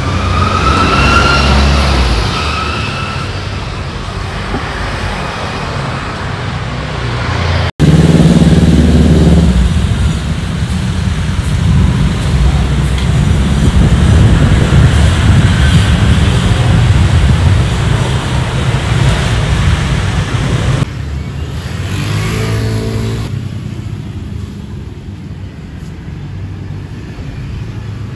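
Street traffic: motor vehicles running and passing close by, with an engine note rising in pitch in the first few seconds and other engines going by about a third of the way in and near the end. The sound changes abruptly twice, about a third of the way in and about three quarters through.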